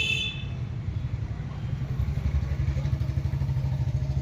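Motorcycle engine running close by in street traffic, a steady low rumble throughout. A high horn blast cuts off right at the start.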